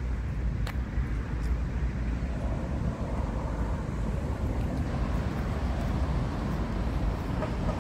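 Steady low rumble of wind on the microphone and road traffic, with faint clicks of stiletto-heeled mules on asphalt, two sharper ones about a second in.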